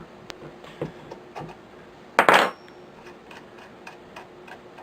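A 7/16 wrench working the bolt off a rifle action, with a few light metal clicks, then a single loud metal clatter with a short ring a little over two seconds in as a metal part or tool is set down.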